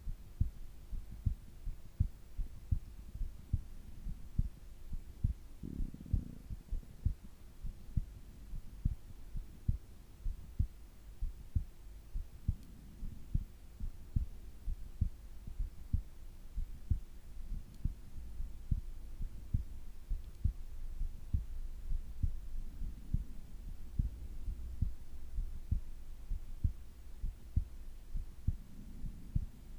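A sleeping person's heartbeat, recorded close to the body: low, regular thumps a little faster than one a second. Soft, slow breaths swell up now and then, over a faint steady hum.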